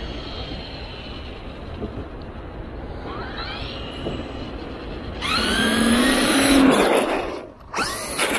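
Traxxas E-Revo 2 electric RC truck accelerating, its motor whine rising in pitch, loudest from about five to seven seconds in as it comes close; a second short burst of throttle near the end as it rears up on its back wheels.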